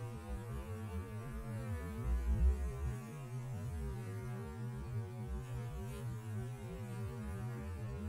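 Honeybees buzzing at a hive entrance: a steady low drone from many bees in flight, swelling louder briefly about two seconds in.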